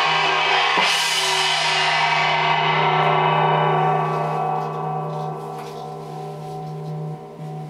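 Wind gong struck about a second in, already ringing before the stroke, its many overtones slowly fading over the following seconds. Under it runs a steady low drone.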